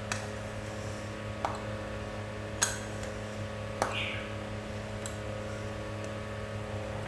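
Pizza cutter cutting thin rolled dough on a board: about five light, sharp clicks and knocks spread out, the loudest near the middle, over a steady low hum.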